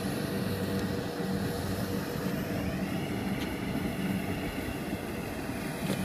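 Kubota rice combine harvester's engine running steadily while it cuts, a continuous low drone with a steady hum.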